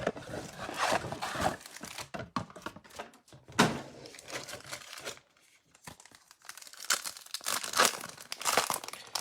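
Plastic trading-card packaging being torn open and crinkled by hand, in irregular rustles and rips with a short pause about halfway through.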